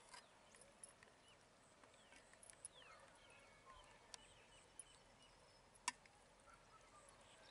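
Near silence: a few faint, sharp clicks of a steel serving spoon against a steel bowl as curry is ladled out, the loudest about six seconds in, with a few faint high chirps in the background about three seconds in.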